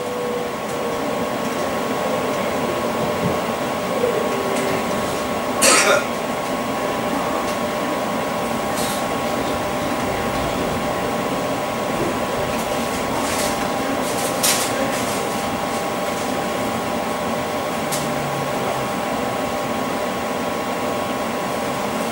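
Steady interior hum of a Class 345 electric train carriage, with a few faint high tones held throughout. Occasional sharp clicks and knocks, the clearest about six seconds in and again near fourteen seconds.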